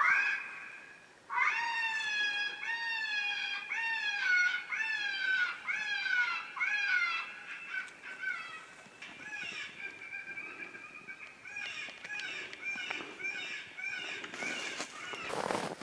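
Animal calling: one long note, then a quick run of short falling yelps about two a second, which thin out into a fainter held tone in the second half. A brief rustle or scuff comes near the end.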